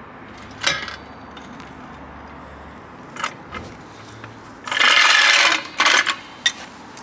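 Metal clicks and knocks from a hydraulic trolley jack and its steel handle being worked, with a louder scraping rush lasting about a second, about five seconds in, as the jack is let down.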